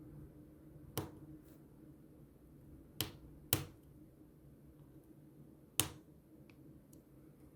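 Four sharp clicks from small repair tools and phone parts being handled: one about a second in, two close together around three seconds, and one near six seconds, over a faint steady hum.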